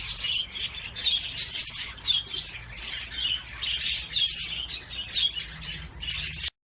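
Small pet cage birds chirping and twittering continuously, with many short repeated calls; the sound cuts off suddenly near the end.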